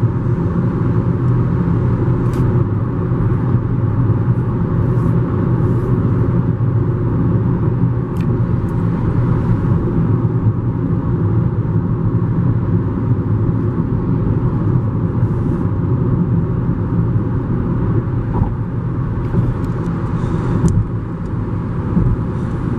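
Steady in-cabin noise of a car cruising on a motorway: an even, low rumble of tyres and engine, with a few faint ticks.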